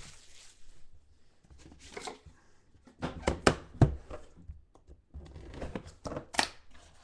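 Hands handling a freshly unwrapped trading-card box: crinkling plastic shrink-wrap, then scattered rustles, taps and a few sharp knocks as the box is set on a table and fingers work along its lid.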